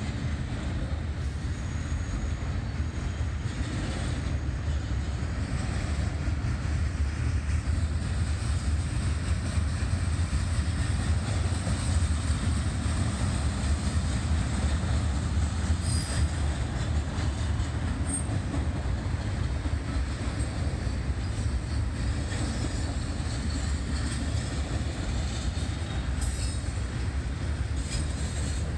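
Norfolk Southern container train rolling past: the steady rumble of freight cars' wheels on the rails.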